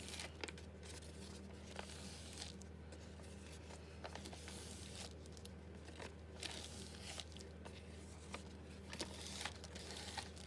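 Sheet of paper being pressed and dabbed over wet spray ink to soak it up, giving soft, scattered rustles and crinkles over a faint steady low hum.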